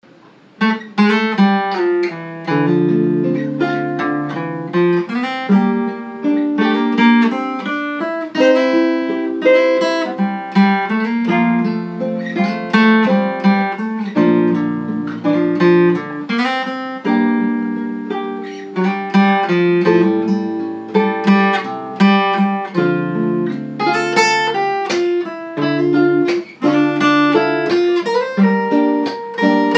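Guitar music: plucked notes ringing and fading, with low bass notes under a higher melody, beginning about half a second in.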